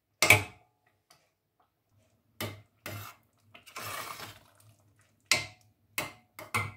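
Metal spoon clinking and scraping against a stainless steel saucepan while stirring thick, hot pumpkin puree: a handful of sharp clinks with a short scraping stretch about four seconds in.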